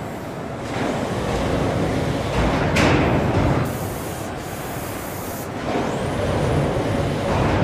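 Factory press-line noise: machinery and a conveyor belt running steadily as sheet-metal bonnet panels are handled, with a short sharp hiss about three seconds in.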